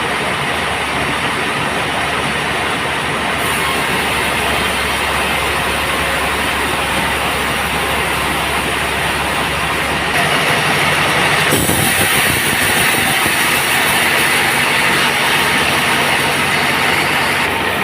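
Band saw sawmill running and sawing a teak log, a steady loud mechanical noise that grows louder and brighter about ten seconds in.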